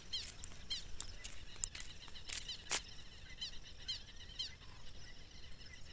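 Wild birds singing: a scatter of short, high chirps and quick whistled notes, faint against a quiet rural background.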